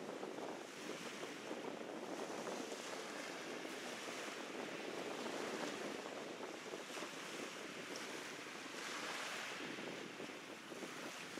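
Wind blowing across the microphone: a steady rushing that swells and eases in gusts.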